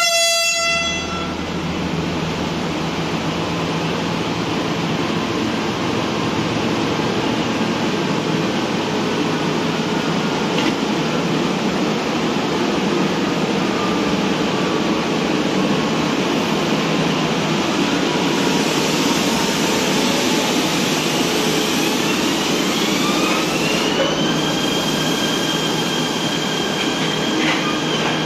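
CRRC Zhuzhou KTM Class 93 electric multiple unit pulling away: a short horn blast of about a second at the start, then the steady rumble of the coaches rolling past. Near the end the electric traction motors' whine rises for a few seconds as the train gathers speed, then holds steady.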